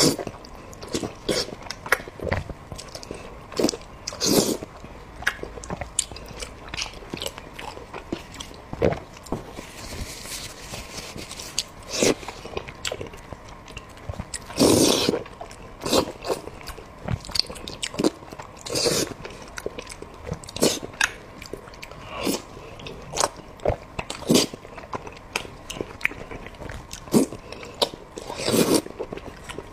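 Close-miked eating sounds of someone chewing pork and rice: a steady run of wet chewing clicks and smacks, with a few louder, longer mouth sounds every few seconds.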